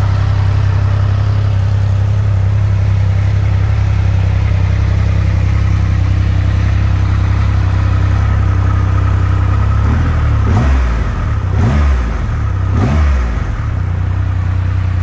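2020 Triumph Rocket 3R's 2,458 cc inline three-cylinder engine idling steadily in neutral. About ten seconds in, the throttle is blipped three times, about a second apart, each rev rising and dropping back to idle.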